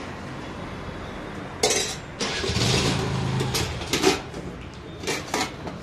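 Stainless steel ladle, thali and bain-marie trays clinking and clattering as food is served, with a sharp metal clink just under two seconds in and another about four seconds in.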